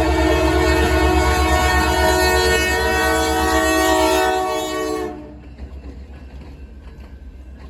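Locomotive horn of the Canadian Pacific Holiday Train held as a long chord, dipping slightly in pitch before it cuts off about five seconds in. The train's rolling rumble continues afterwards.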